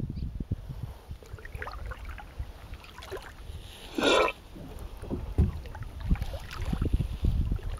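Small water sounds from a kayak on a rippled reservoir: light lapping and splashing against the hull, with wind rumbling on the microphone. One louder, brief splash about four seconds in.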